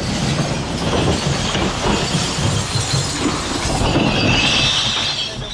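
Glass bottles and jars crashing and grinding in the rear hopper of a Dennis Elite refuse truck: a loud, continuous clatter of breaking glass, very noisy, with a harsher high scraping in the last second or so.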